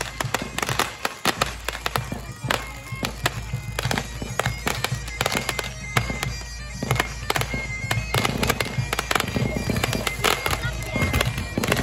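Aerial fireworks bursting and crackling in a rapid, irregular string of bangs. Music with long held notes plays underneath.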